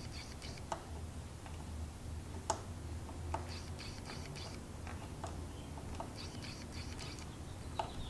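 Sparse light clicks and ticks of small metal mount parts being handled while the expanding fork-stem bolt is fitted, over a faint steady low hum.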